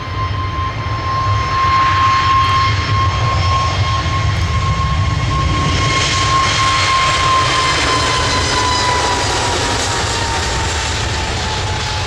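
Emirates Airbus A380's four jet engines on arrival, a steady rushing roar with a high engine whine that slides slightly down in pitch in the second half as the airliner goes by.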